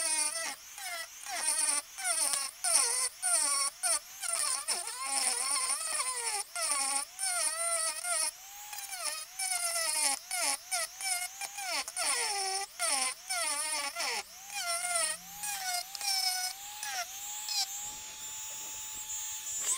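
Dremel rotary tool on low speed with a small sanding drum, grinding hardened JB Weld bedding overspill out of a rifle stock's magazine well. Its whine wavers up and down as the drum bogs against the work, with scraping clicks; near the end it runs free at a steady pitch, then stops.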